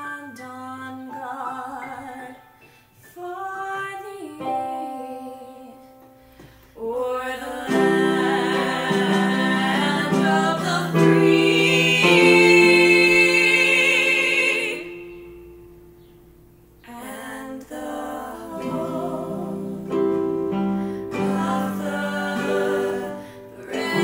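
A woman singing a national-anthem melody solo, accompanied by chords on an electronic keyboard. Her held notes grow loudest in the middle, with vibrato, then die away to a brief lull before the singing and chords start again.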